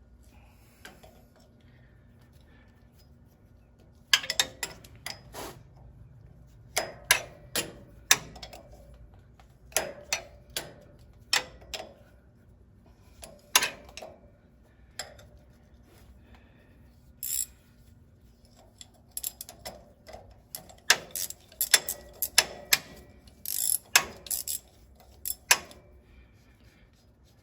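Hand tools clicking and tapping against the steel parts of a Farmall 450's PTO lever linkage as a part is worked loose: irregular sharp metallic clicks, some in quick clusters, starting about four seconds in.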